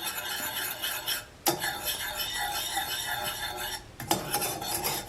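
A utensil stirring and scraping around a pot, mixing cheese sauce, in three stretches with two short pauses.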